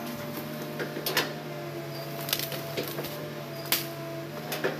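Hitachi hydraulic excavator's diesel engine running steadily as the machine swings and works its boom. Several sharp knocks and clacks come about a second apart over the engine hum.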